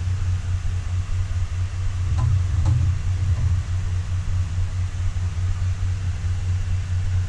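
Steady low rumble of an electric fan blowing in the room, with a couple of faint brief handling sounds about two and three seconds in.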